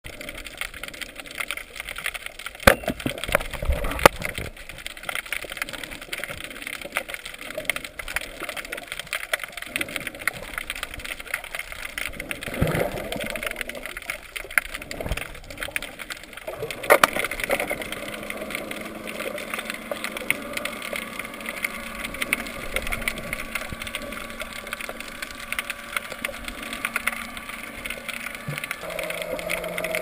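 Underwater recording: a constant crackling hiss with scattered clicks and a few sharp knocks, the loudest about three seconds in, a second later, and about seventeen seconds in. From about seventeen seconds on, the steady drone of a motorboat's engine comes through the water and continues.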